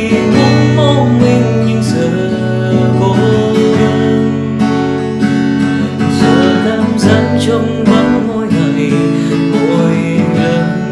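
Acoustic guitar strumming in an instrumental break of a slow pop ballad, with sustained accompaniment and no singing.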